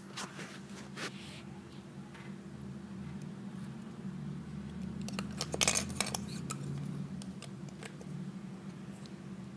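Plastic Lego pieces clicking and rattling as the model is handled, with a quick cluster of clicks about halfway through, over a steady low hum.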